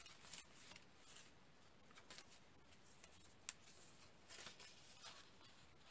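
Faint rustling of paper pages being turned and handled in a small handmade journal, with one short sharp click about three and a half seconds in.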